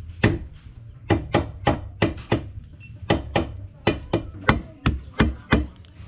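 Knife chopping food on a cutting board: about sixteen sharp strokes in quick runs, roughly three a second, over a steady low rumble.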